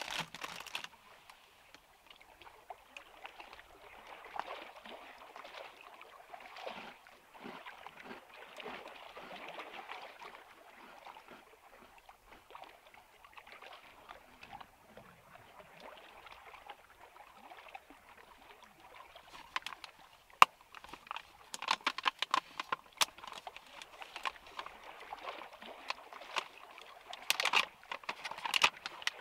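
Soft, irregular water sounds. From about two-thirds of the way in come sharp crinkling clicks as a foil-lined coffee bag is handled and torn open by hand.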